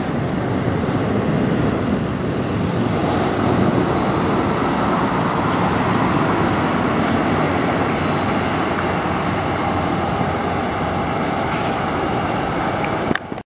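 Freightliner Cascadia semi truck's diesel engine running steadily as the tractor-trailer pulls slowly past, with a faint falling whine a few seconds in. The sound cuts off abruptly near the end.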